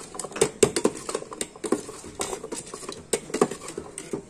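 Spiced guava pieces shaken inside a closed aluminium tin, knocking against its walls and lid in a quick, uneven run of thuds, about three a second.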